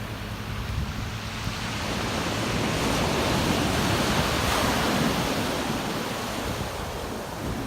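Pacific Ocean surf: a wave breaking and washing up the beach, swelling over a couple of seconds to its loudest midway and then easing off.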